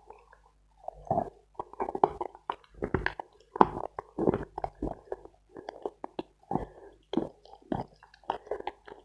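Close-up chewing of dense dry edible chalk (Khrapovsky): irregular crisp crunches, a few a second.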